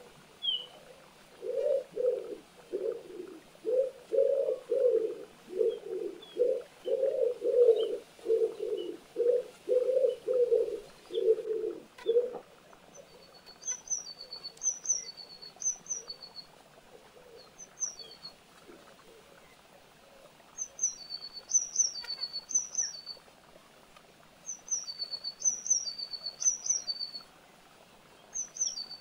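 A pigeon cooing in a long run of low notes, about two a second, that stops a little before halfway. After that, a small songbird sings short phrases of high, quick chirps, repeated with pauses between them.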